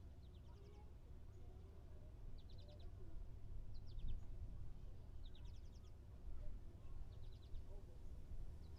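Summer beach parking lot ambience: a steady low rumble, with a small bird giving short, rapid high chirp series about every second and a half.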